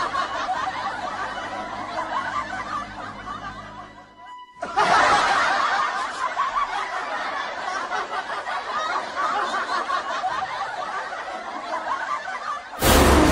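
Many people laughing together in a dense, continuous wash of laughter. It dies away about four seconds in, comes back louder a moment later, and a loud burst of noise cuts in near the end.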